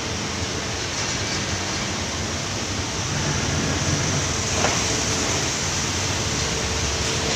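Batik screen-printing machine running: a steady mechanical rumble and hiss, with a short knock about four and a half seconds in.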